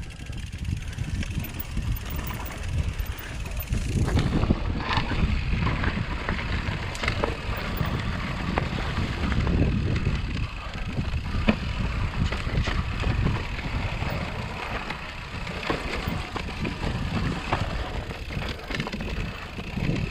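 Mountain bike rolling down a dirt and rock trail: tyre rumble with frequent knocks and rattles from the bike over bumps, and wind on the microphone. It gets louder about four seconds in.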